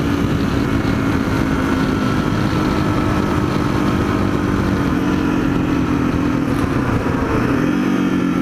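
Yamaha XT225 dual-sport's single-cylinder four-stroke engine running steadily at highway cruising speed, heard from on the bike with heavy wind rumble on the microphone. Its note shifts slightly about five seconds in and rises a little near the end.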